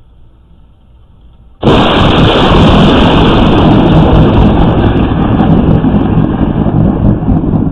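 Thunder from a close lightning strike: quiet until about a second and a half in, then a sudden, very loud crack that runs straight on into a long, heavy rumble.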